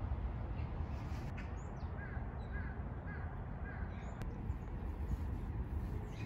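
Crow cawing, a run of four short caws about half a second apart, over a steady low rumble.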